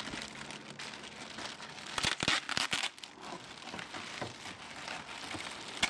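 Clear plastic bags crinkling and rustling as the foam tailplane pieces of a model aircraft are handled and unwrapped. A cluster of louder crackles comes about two seconds in.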